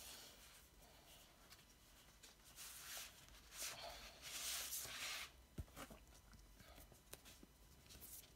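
Faint rustling and sliding of a paper record inner sleeve and glossy printed insert as they are handled. The rustle is loudest in two stretches, about three seconds in and from about four to five seconds in, with a few light ticks after.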